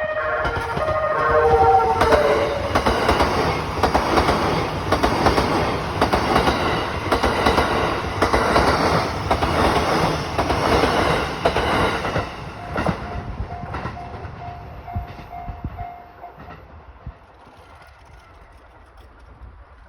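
Limited express Azusa electric train passing over a level crossing, its wheels clattering rhythmically over the rail joints for about ten seconds. A short tone falls in pitch as the train arrives. The crossing's warning bells ding steadily, come through clearly again once the train has passed, and stop about 16 seconds in.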